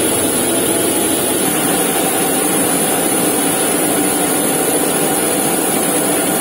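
Steady, loud turbine roar of a parked jet airliner running on the ramp, heard from beneath the aircraft by its main landing gear, without any change in pitch or level.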